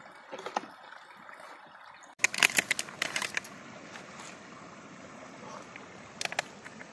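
Handling sounds from hands moving grilled fish on bamboo skewers over leaves: crisp rustles and clicks, a quick flurry of them about two seconds in and a couple more near the end, over a steady hiss.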